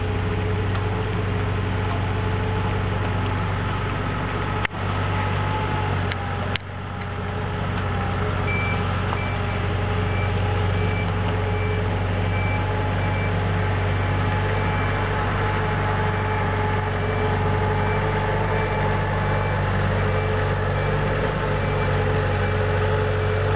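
Diesel engines of a mini excavator and a Cat 216 skid steer running steadily under work. A reversing beeper sounds in an even series of high beeps for a few seconds about a third of the way in.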